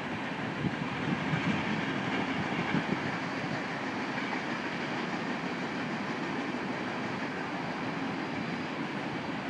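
Covered hopper cars of a freight grain train rolling past on the rails: a steady noise of wheels on track with many irregular clicks, a little louder in the first few seconds.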